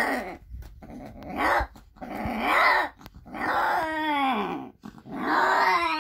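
Cat yowling during mating, a Himalayan tom mounted on a Persian queen: a series of about five loud, drawn-out yowls, the later ones longer, each bending up and down in pitch.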